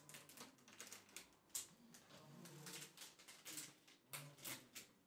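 Faint crinkling and crackling of a clear plastic bag being handled, a quick irregular run of small crackles.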